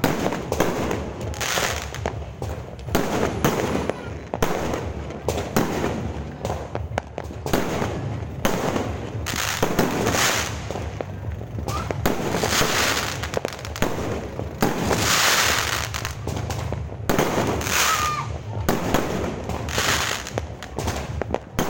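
Fireworks going off in a dense, continuous barrage: rapid bangs and crackles with louder bursts about every second.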